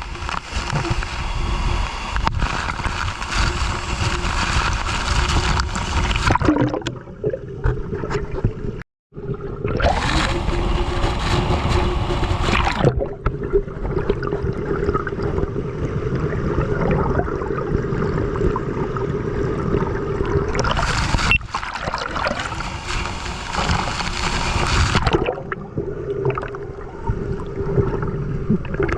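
Water gurgling and sloshing close to the microphone, with a faint steady tone underneath. The sound changes abruptly several times and drops out completely for a moment about nine seconds in.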